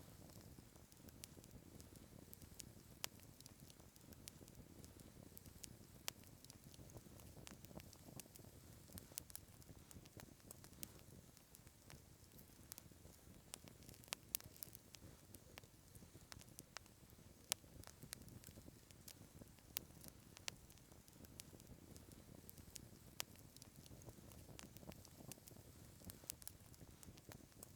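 Campfire crackling faintly: irregular sharp pops and ticks over a low, steady hiss.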